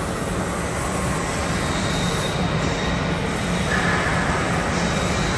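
Steady machinery noise of construction work inside an underground powerhouse cavern: a constant low hum under an even, broad hiss, with no distinct knocks or strikes.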